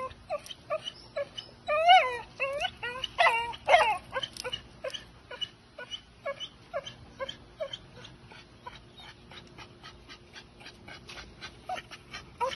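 Young pit bull terrier whining and whimpering while tugging on a spring-pole rope. There are high, wavering cries in the first few seconds, then a long run of short whimpers and quick faint ticks.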